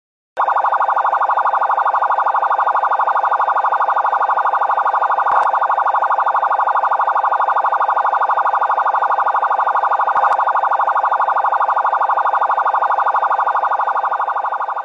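Electronic emergency-vehicle siren sounding a fast, steady pulsing warble at one pitch, with no rise and fall. It starts abruptly just after the beginning and fades near the end.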